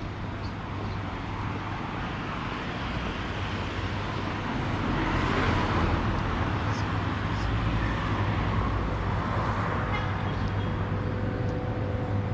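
City street traffic: cars and other motor vehicles passing over a steady low hum, with one louder pass about halfway through.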